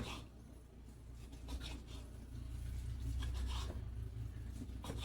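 A knife cutting spiral-sliced ham on a cutting board: a few faint scraping strokes, over a steady low hum.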